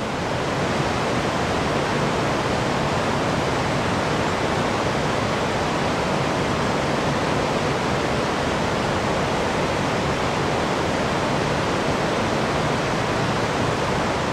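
Steady rushing of the Chaudière River falls and rapids, a loud, even wash of water noise.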